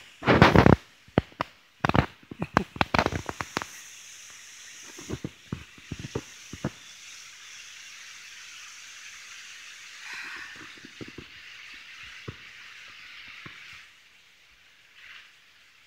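Handling noise on a handheld phone's microphone: a run of crackles and knocks, densest in the first four seconds and again briefly about ten seconds in, over a steady outdoor hiss that fades near the end.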